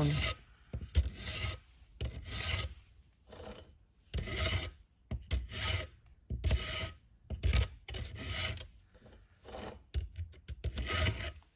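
Stihl two-in-one file guide being pushed across saw-chain cutters, a round file sharpening the teeth while a flat file takes down the depth gauges: a series of about a dozen short metal rasping strokes, about one a second, with brief pauses between groups as it moves from tooth to tooth, four strokes to a tooth.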